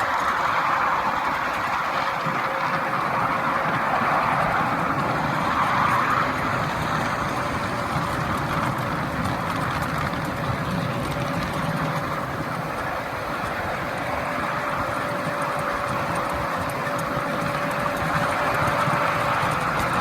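Small-gauge railway locomotive and train running steadily along the track, with an even rumble of wheels and drive and a faint steady whine.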